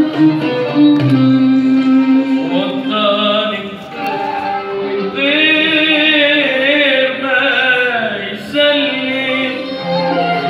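Live Arabic song: a violin plays a melody, and about three seconds in a man's amplified voice comes in singing over the violin accompaniment.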